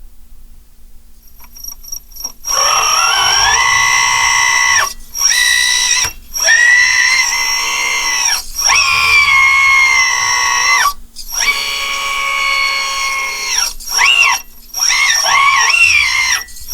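Kabolite K963 1/16-scale RC hydraulic loader's pump motor whining at a high pitch in several stretches of two to four seconds with brief breaks, starting about two seconds in, the pitch rising at the start of each stretch.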